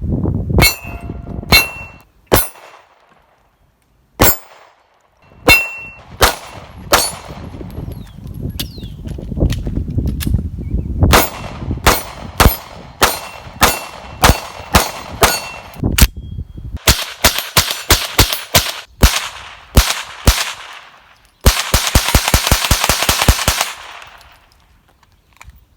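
Gunfire: a few spaced single shots, then a steady string of about two shots a second, then faster strings, ending in a very fast burst lasting about two seconds. A few of the early shots are followed by a brief high ringing tone.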